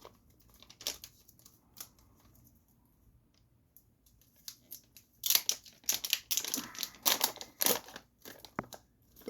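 A gummy package being opened by hand, crinkling and tearing. There are a few scattered crackles at first, then a quiet stretch, then a couple of seconds of dense crinkling past the middle, with a few more crackles near the end.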